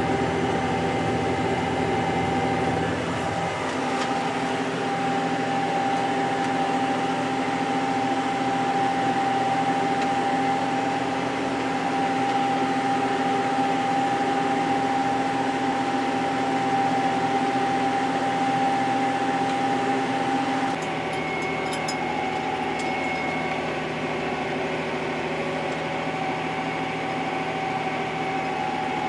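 Fendt 712 tractor working in the field, heard from inside the cab: a steady engine and drivetrain drone with a high whine over it. The tone changes slightly a few seconds in and drops a little in level about 21 seconds in.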